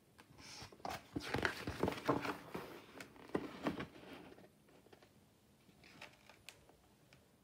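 Paper rustling and soft handling knocks as a hardback picture book's page is turned, lasting about four seconds, then only a few faint clicks of the book being held.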